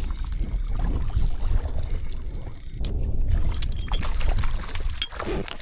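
Strong, gusty low rumble of wind buffeting the microphone over the water and paddle sounds of a small paddled boat, with a few light knocks.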